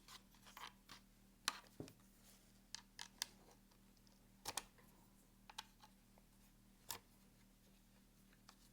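Faint, scattered clicks and small metal-on-plastic clatters of a hex key working the bolts that hold the paddle to a Safariland ALS polymer holster. The sharpest ticks come about a second and a half in, at four and a half seconds and near seven seconds.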